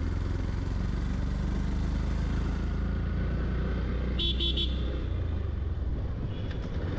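Yamaha FZ-X's single-cylinder engine running steadily while riding, with a quick burst of horn toots a little over four seconds in and a fainter toot near the end.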